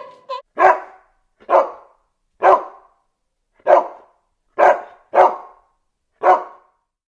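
A dog barking: seven single barks, spaced about a second apart.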